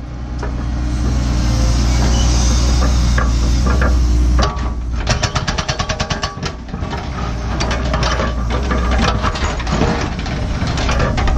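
Cat 314E excavator's diesel engine running steadily under load for the first few seconds. About halfway in, its hydraulic rock hammer starts pounding hard basalt bedrock in rapid blows, in uneven runs over the engine.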